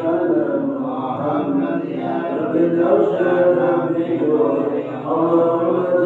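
Husky male voice of the imam chanting the Islamic wirid (dhikr litany) after dawn prayer, in long drawn-out sung phrases without a break.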